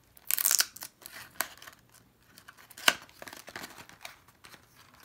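Tape seal being torn from a small cardboard box: a loud rip just after the start, then light cardboard handling as the box is opened, with a sharp click about three seconds in.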